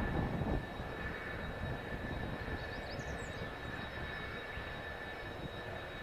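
Kawasaki T-4 jet trainer's twin turbofan engines running at low power as it rolls on the runway: a steady high whine over a low rumble. The rumble is heavier in the first half-second, then evens out.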